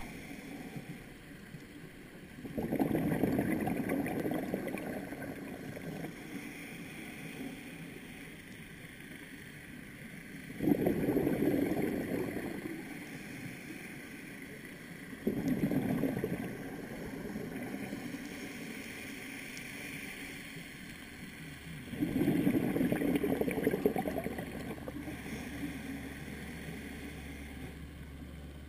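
Scuba regulator breathing heard underwater: four loud bursts of exhaled bubbles, each rumbling for two or three seconds and several seconds apart, with a fainter hiss of inhalation through the regulator in between.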